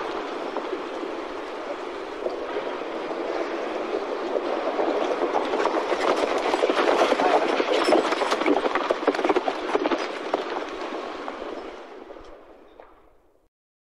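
A horse's hooves cantering in a dense, continuous clatter, which dies away over about the last two seconds to silence.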